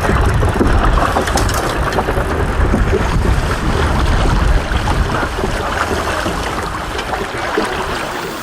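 Wind buffeting the microphone over the rush of water around a river boat, with a heavy low rumble that eases about five seconds in.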